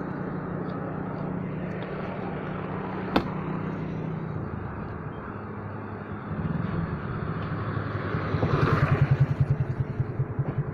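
Motorcycle engine running as it slows, its hum dropping in pitch about halfway through, then settling into a fast, even throb as the bike comes to a stop. A single sharp click about three seconds in.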